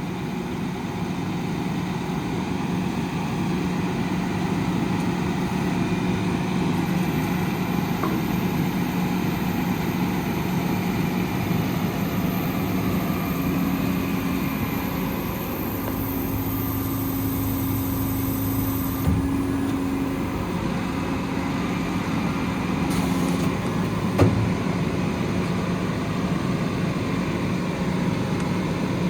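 Cummins ISL 8.9 diesel of a Freightliner M2 service truck running at raised idle to drive the hydraulic crane. A steady tone from the crane's hydraulics comes in about halfway and stops a few seconds before the end. Two brief knocks sound near the two-thirds mark.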